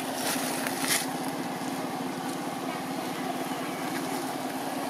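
A motor running steadily, a constant hum with a fast, even pulse, and a short sharp sound about a second in.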